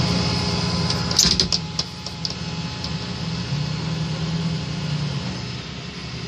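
Flatbed tow truck running steadily as its winch drags a van up the tilted bed, with a quick cluster of clicks about a second in.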